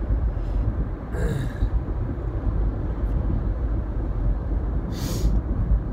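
Road and engine noise inside a moving car's cabin, a steady low rumble, with two brief hisses, about a second in and near the end.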